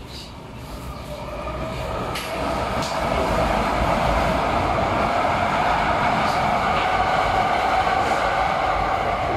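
A loud, steady rushing noise swells over about three seconds and then holds, with a few sharp clacks of sticks striking each other.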